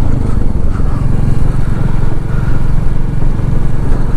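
Motorcycle engine running steadily while riding along the road, with a dense rush of road and wind noise over it.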